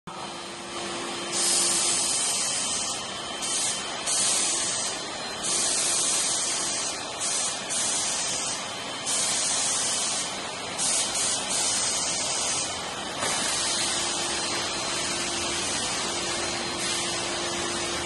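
Steam vacuum cleaner's steam gun firing about eight short hissing blasts of high-temperature steam, each lasting one to one and a half seconds, over a faint steady hum. From about thirteen seconds in, a steadier continuous rushing takes over as the vacuum runs.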